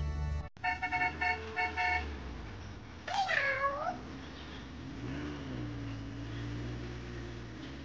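Several short horn beeps in quick groups, then a single meow-like animal cry about three seconds in, followed by a low steady engine-like hum.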